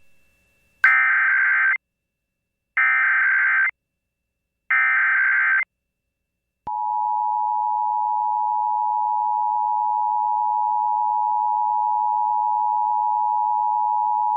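Emergency Alert System SAME data header, three one-second bursts of screeching digital data about a second apart, encoding a Required Monthly Test. About halfway through, the steady two-tone EAS attention signal (853 and 960 Hz) sets in and holds.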